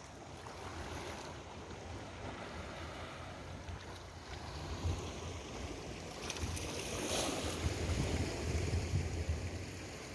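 Wind buffeting the microphone over sea waves washing against the breakwater, with gusts growing stronger in the second half.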